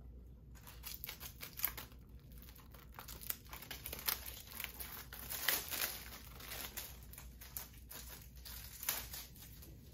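Plastic shrink wrap crinkling and tearing as it is pulled off a Blu-ray case, in a run of irregular crackles with a few sharper rips.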